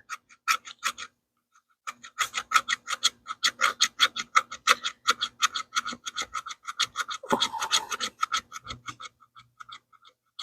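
Small fixed-blade knife (CRKT Folts Minimalist Bowie) scraped rapidly back and forth across wood to raise fine scrapings, about four strokes a second, pausing briefly about a second in and thinning out near the end. The blade lacks a truly sharp edge, so the scrapings come off poorly.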